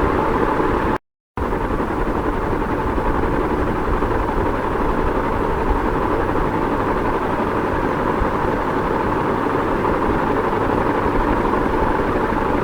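Ceiling fan running steadily: an even whooshing hum. It cuts out completely for a moment about a second in, then resumes unchanged.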